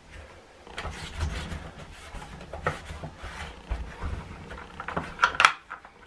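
Hard plastic parts of a washing machine's detergent dispenser drawer being handled and knocked against each other, with a microfiber cloth rubbing over the plastic. Scattered light knocks, with the loudest sharp clacks just past five seconds in.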